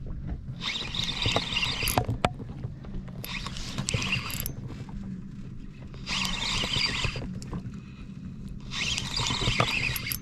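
Fishing reel whirring in four short spells of about a second each, a few seconds apart, over a steady low hum.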